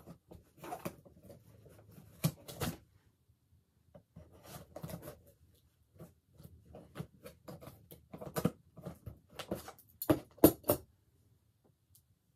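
Hands picking and scratching at the edge of a cardboard shipping box to get it open, in irregular bursts of scraping and rustling with a few sharper clicks and snaps, the last ones about ten seconds in.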